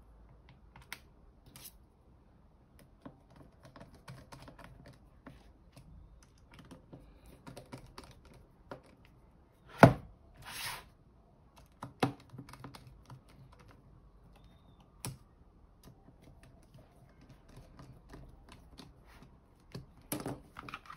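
Hands handling and pressing on a rubber-bumpered scan tablet on a table: scattered light clicks and taps. A sharp knock comes about halfway through, followed by a brief rustle, and a few softer knocks come later.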